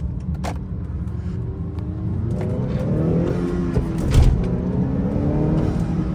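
2019 Honda Accord 2.0T's turbocharged four-cylinder accelerating through its new PRL high-volume intake, the engine note rising. A sharp burst comes just after four seconds in as the revs drop, then the engine pulls on steadily.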